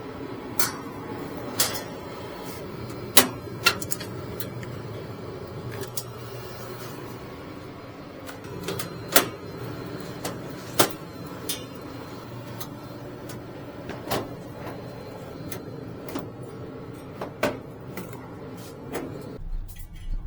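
Irregular clicks and knocks, as of tools and metal parts being handled, over a steady low machine hum that stops near the end.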